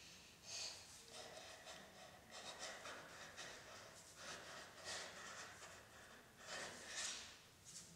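A young man crying quietly: faint, uneven, breathy sobs and sniffs, roughly one a second.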